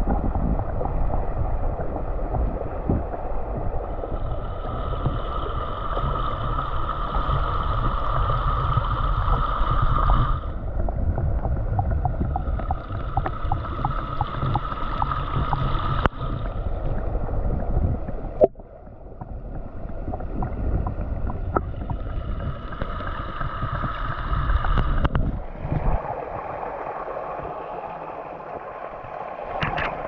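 Muffled rushing and rumbling of a small waterfall plunging into a stream pool, heard through a camera held underwater, with a higher hiss that swells and fades several times.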